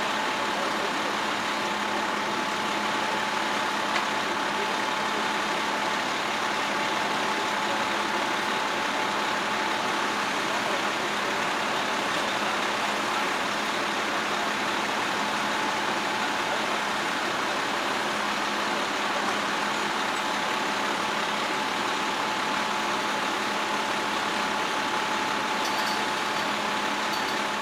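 Large engine running steadily, a constant whine over an even hiss, unchanging throughout.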